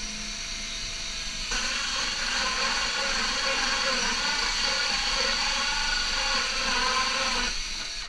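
Cordless drill spinning a 1.5-inch hole saw through half-inch plywood: a steady whirr that gets louder about a second and a half in as the saw bites into the wood, then stops shortly before the end once it breaks through the layer.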